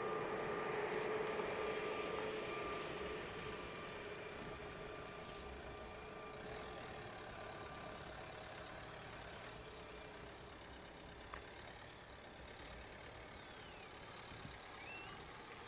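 Airbus A320neo's CFM LEAP-1A turbofans running at taxi power, a steady whine over a low rush. The sound fades over the first half as the airliner rolls away.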